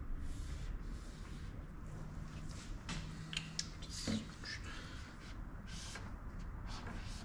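Faint felt-tip whiteboard marker strokes and squeaks on a whiteboard, with a few light taps. Around two-thirds of the way in comes a short scrape of an eraser wiping the board.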